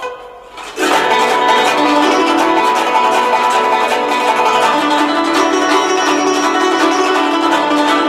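Guzheng being played. After a brief lull, a loud, dense passage of many plucked notes sets in just under a second in and carries on steadily.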